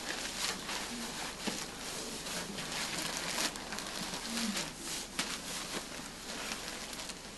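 Rustling and crinkling of a disposable protective coverall and a plastic floor sheet as rubber boots are pulled off and stepped out of, with many small crackles throughout.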